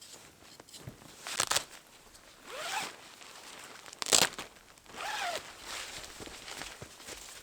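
A zipper pulled in several strokes: two short, sharp rasps about a second and a half in and about four seconds in, each followed by a slower drawn-out pull.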